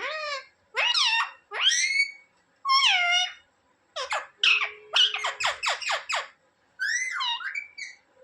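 Indian ringneck parrot calling: a series of short, high calls that slide in pitch, roughly one a second, then a quick run of short calls in the middle and a final wavering call near the end.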